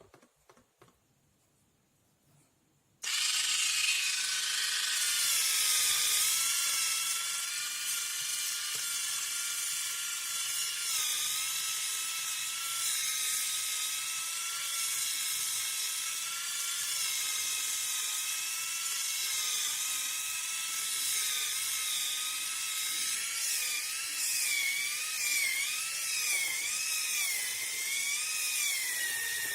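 Vega Silky Soft battery-powered electric callus remover switching on about three seconds in and running with a high-pitched motor whine as its abrasive roller files the foot. The pitch wavers and dips again and again, most of all near the end, as the roller is pressed against the skin.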